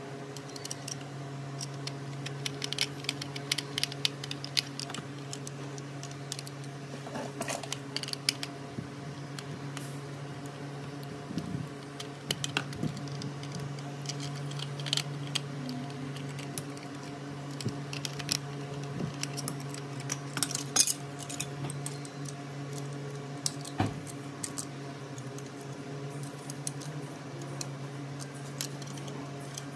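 Scattered light clicks and taps of small metal and plastic toy-car parts being handled, over a steady low hum.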